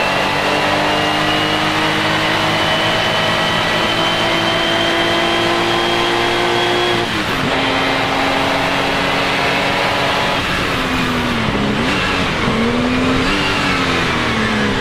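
Porsche 935 K3's twin-turbo flat-six racing engine pulling under load, its pitch climbing slowly through a long gear with a sharp drop at an upshift about seven seconds in. From about ten seconds in the revs fall and dip several times, as in downshifts under braking, then pick up again.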